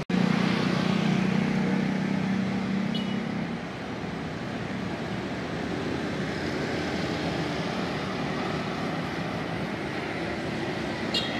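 Street traffic: a motor vehicle's engine hum is loudest over the first three or four seconds, then eases into a steady wash of passing traffic.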